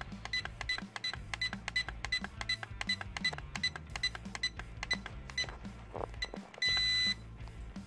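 Dromida MR100 drone transmitter beeping as its trim button is pressed over and over: a quick run of short high beeps, about four a second, then one long beep near the end that marks the trim at dead center.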